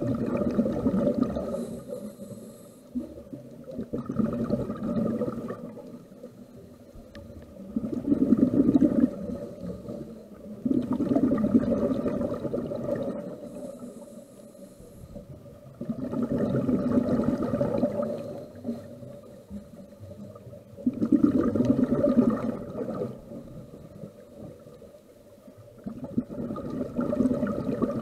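Scuba diver breathing through a regulator underwater: exhaled bubbles rumble and gurgle in bursts of a second or two, about every four to five seconds, with quieter gaps for the inhale between.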